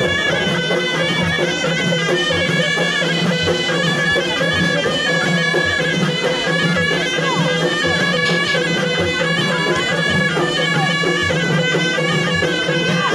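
Moroccan ghaita shawms playing a loud, steady, reedy folk melody, with drum strokes beating underneath.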